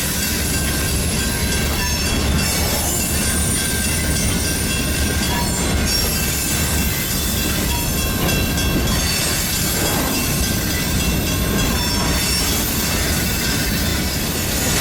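Freight train rolling past with a steady low rumble from the cars and thin, high-pitched squeals from the wheels.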